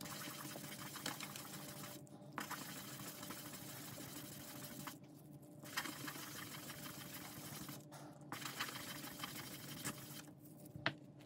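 A resin die rubbed by hand on wet green polishing paper: a faint, scratchy swishing in bouts of two to three seconds, with short pauses as the die is lifted and turned to the next face. It is wet-sanding the faces flat and evenly matte.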